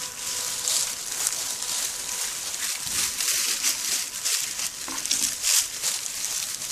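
Outdoor ambience picked up by a trail camera's microphone: a steady hiss with rustling that swells and fades.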